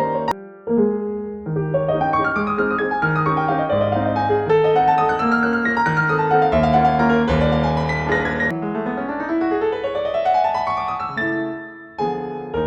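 Background solo piano music, with a rising run of notes near the end.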